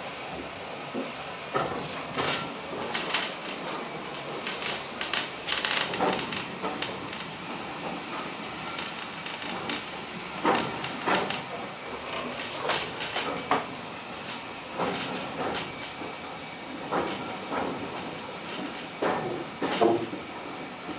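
Small steam train running along the line, heard from aboard: a steady steam hiss under an uneven run of knocks and rattles from the train on the track.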